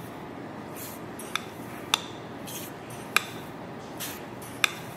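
A measuring spoon clinking against a glass jar as chia seeds are scooped out and tipped into a glass bowl of milk. There are four sharp clinks, with a soft hiss of seeds pouring between them.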